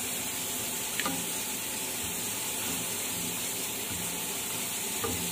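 A plastic spatula stirring seafood and broth in a stainless steel pan on the stove, with a light click against the pan about a second in and again near the end, over a steady hiss.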